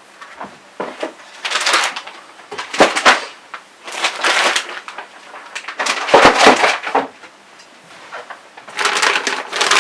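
Plastic parts bags and packaging being handled and crinkled in four bursts a second or two long, with small clicks and knocks from the parts inside.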